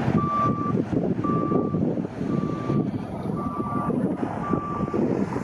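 Reversing alarm of a construction vehicle beeping steadily, a single tone about once a second, over a continuous low rumble.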